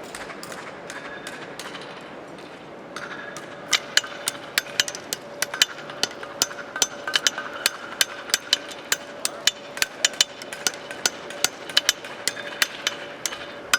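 Farriers' hammers striking horseshoes on anvils: sharp, irregular blows, about two or three a second, starting about three seconds in, over a faint steady ring.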